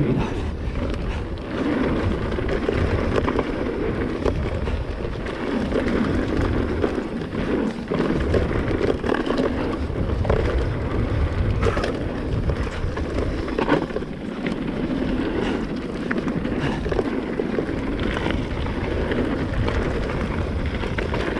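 Mountain bike riding fast downhill on a dirt and stone trail: continuous tyre roll and rattle over the loose surface, with a few sharp knocks from hitting rocks in the second half.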